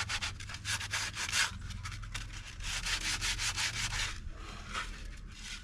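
Sanding hardened filler to square off its edges: quick, repeated rasping strokes that come in spells, with short pauses between them.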